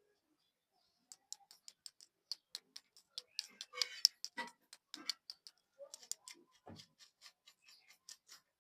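Rapid, irregular taps and clicks on lollipop packaging, handled close to the microphone, with a short burst of crinkling just before the middle and a dull knock a little later.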